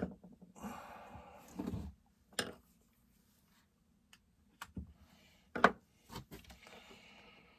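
Chainsaw parts and hand tools handled during a teardown: scattered sharp clicks and clinks with short bouts of scraping.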